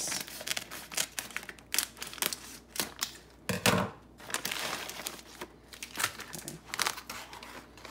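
Clear plastic bag of dry pinto and black beans crinkling as it is handled, with the beans shifting and clicking inside. There is a louder knock about three and a half seconds in.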